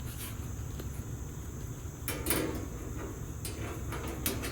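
A few knocks and clanks of metal gas-grill parts being handled and set in place, the loudest about two seconds in, over a steady low rumble.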